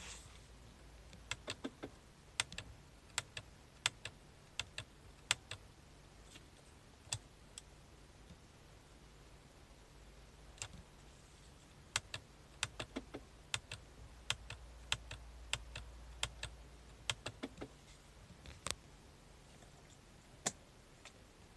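Dozens of sharp clicks from the push-buttons of a Mercedes-Benz W202 climate control panel being pressed in irregular runs while stepping through the stored fault codes, with a pause of a few seconds in the middle. A faint steady low hum lies underneath.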